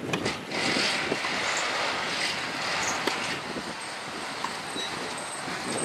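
A tennis ball struck by a racket on a serve, a sharp crack right at the start. Under it, a rushing noise swells about half a second in and eases off after about three seconds.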